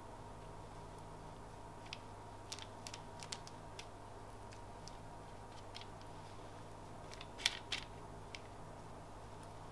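Faint scattered clicks and light taps of a silicone pastry brush working egg wash from a small glass bowl onto shaped bread dough on a parchment-lined baking tray, over a low steady hum. The loudest is a pair of clicks about seven and a half seconds in.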